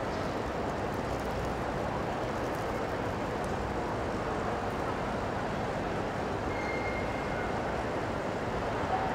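Steady ambient noise of a large indoor exhibition hall: an even, featureless rumble with no distinct events.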